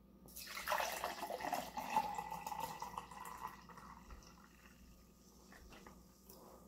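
Liquid poured in a steady stream from a large plastic jug into a tall pint glass, the pouring tone rising slightly in pitch as the glass fills. The sound starts about half a second in and tapers off after about four seconds.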